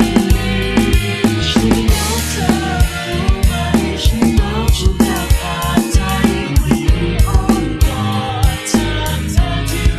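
Karaoke MIDI backing track played through a soundfont in eXtreme Karaoke: a steady drum-kit beat of kick and snare under sustained bass notes and a wavering melody line.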